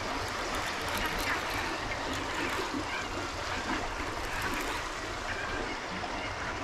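Steady rush of river water flowing through a swift current eddy.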